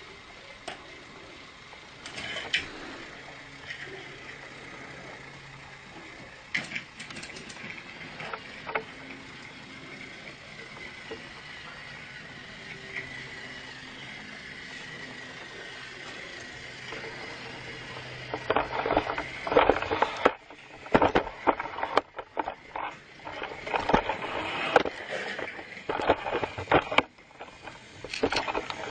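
Battery-powered toy train's small motor running with a steady hum and occasional clicks, followed in the last ten seconds by a run of loud, irregular plastic clattering and knocks.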